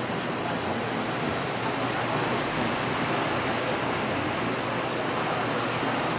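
Small surf of the Gulf of Mexico washing onto a sandy beach, a steady, even hiss.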